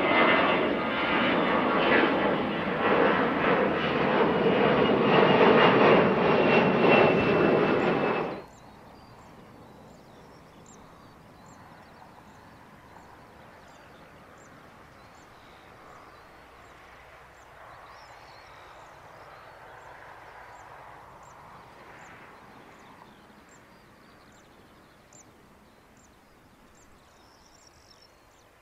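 Airbus ACJ319 jet engines at climb-out power: a loud steady engine roar with a faint high whine falling slightly. It cuts off about eight seconds in, leaving a faint background with the quiet, slowly swelling engine sound of the jet taxiing, and faint high chirps repeating about once a second.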